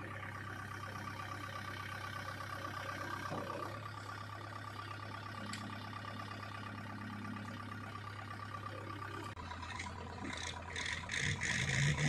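JCB 3DX backhoe loader's diesel engine running at a steady pitch while the backhoe arm raises and curls its bucket. About nine seconds in, the engine note drops. A few short clattering knocks follow near the end.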